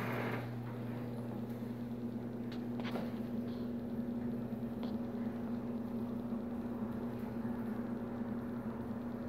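Steady electrical hum of reef aquarium pumps running, with a few faint clicks.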